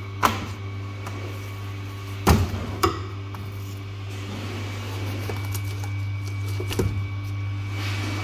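A few sharp knocks as a whole pikeperch and a filleting knife are handled on a plastic cutting board: one right at the start, two close together a couple of seconds in, and one about seven seconds in. A steady low hum runs throughout.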